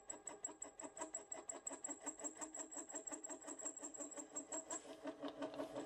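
Small homemade CNC lathe plunging a 2 mm wide grooving tool into 16 mm S45C steel bar turning at 350 rpm. The cut makes a faint rhythmic noise, about six pulses a second, once per turn of the spindle, with a thin high whine over it.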